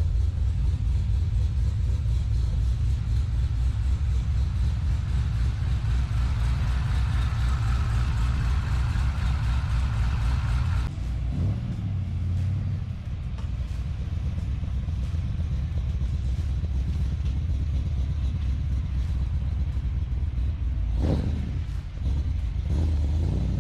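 A car engine idling rough and lumpy on a cold idle, with a strong pulsing rumble. About eleven seconds in, the sound changes abruptly to a slightly quieter run, and a brief knock comes near the end.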